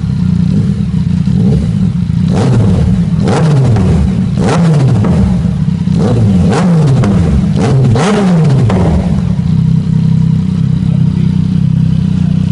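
Yamaha MT-09's inline three-cylinder engine idling on a stand, then blipped several times in quick succession between about two and nine seconds in. Each time the revs jump and fall back with sharp pops on the overrun, the exhaust spitting flames. It settles back to a steady idle.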